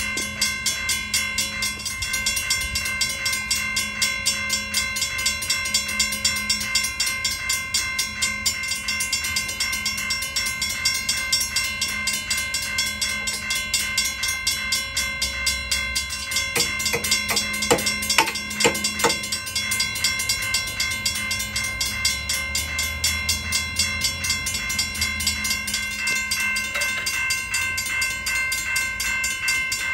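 Railroad crossing warning bell ringing continuously with a fast, even strike rhythm. A few sharp metallic clicks from the gate mechanism about two-thirds of the way through.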